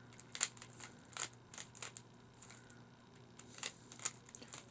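Plastic Rubik's cube being twisted by hand: irregular sharp clicks as its layers are turned, about a dozen in a few seconds.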